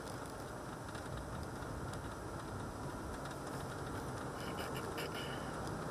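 Steady road and engine noise heard from inside a moving car's cabin, with faint light ticks and rattles.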